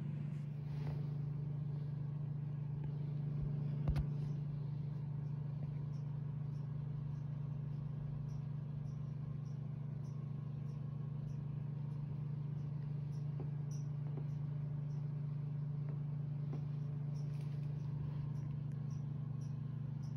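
Steady low hum, unchanging throughout, with faint high chirps repeating every second or so and a single knock about four seconds in.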